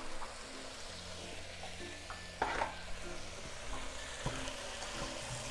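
Vegetables frying and sizzling in a pan while being stirred, with a spoon knocking against the pan a couple of times.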